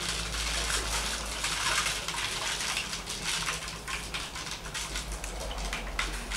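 Water gurgling and trickling through the joined caps of a homemade two-bottle water clock, draining from the upturned plastic bottle into the one below, with many small ticks from the beads carried along in the water.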